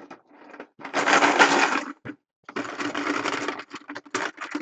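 Plastic draw chips shaken in a container, two rattling shakes of about a second each, followed by a few short clicks as chips are picked out.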